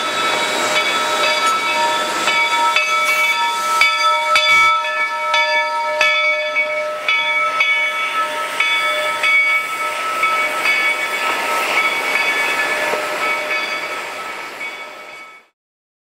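Narrow-gauge steam train, Georgetown Loop locomotive No. 111 and its cars, rolling past close by. The wheels squeal in several high, steady tones that come and go, with a few sharp clicks and knocks. The sound fades out near the end.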